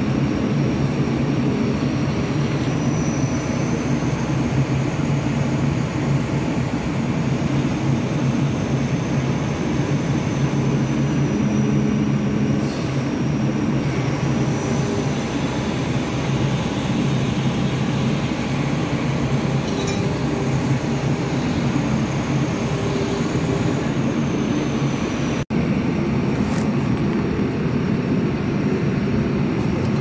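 JCB backhoe loader's diesel engine running steadily, with a faint high whine above it. The sound breaks off for an instant about 25 seconds in.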